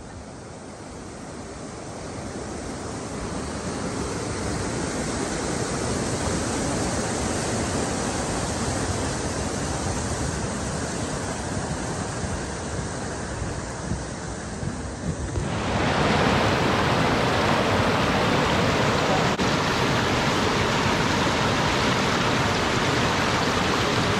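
Rushing mountain creek, growing louder over the first few seconds. About fifteen seconds in it jumps to a louder, brighter rush of fast water close by.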